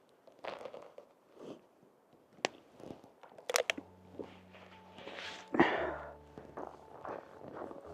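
Water bottle handled during a drink: scattered sharp clicks and short crunching, crinkling sounds, one of the longest about five and a half seconds in.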